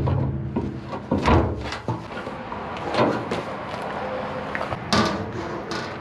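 Knocks and clunks of heavy metal being handled, like a lid or panel being moved and set down. The strongest come about a second, three seconds and five seconds in, some ringing briefly.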